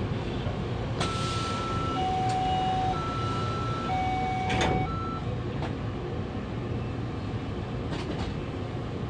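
Taipei Metro C301 train's door-closing warning: beeps alternating between a high and a low tone for about four seconds, with the doors shutting with a thud near the end of the beeping, over the steady low hum of the stopped train.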